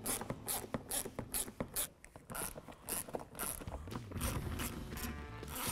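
Ratchet clicking in quick strokes, about four clicks a second with a short pause about two seconds in, as T20 Torx screws are backed out of the bumper cover.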